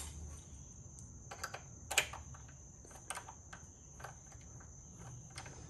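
Scattered faint metallic clicks and taps, about a dozen, as a small Torx bolt is turned out by hand with a socket; the sharpest click comes about two seconds in.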